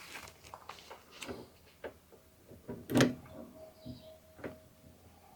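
Small clicks and taps of a crimped pin and a circular Cannon-style connector being handled as the pin is pushed into its socket, with a sharper click about three seconds in.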